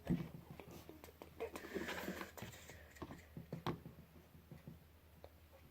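Glue being stirred for slime: faint scraping and squishing with scattered small clicks and taps, a little busier about two seconds in.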